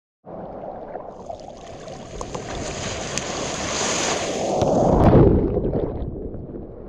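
Ocean wave breaking close by, its hissing crest building over a few seconds. About five seconds in, the whitewater washes over the microphone in a loud rushing surge, then fades back to the wash of the sea.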